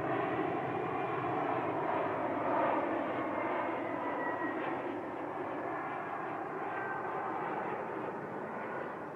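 Jet noise from the Stratolaunch carrier aircraft's six Pratt & Whitney PW4056 turbofans as it flies past: a steady rushing hiss with a faint whistle, slowly fading toward the end.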